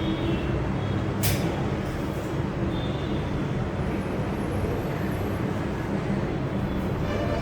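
Steady low mechanical hum over background noise, with a single sharp click about a second in.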